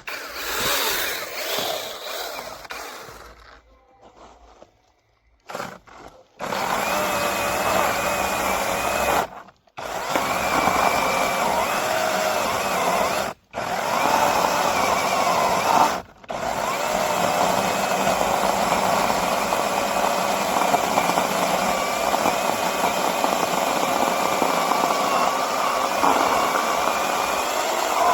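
Battery-powered 8-inch brushless mini chainsaw running and cutting wood, its electric motor whine wavering under load. It stops and starts several times in the first half, then runs steadily.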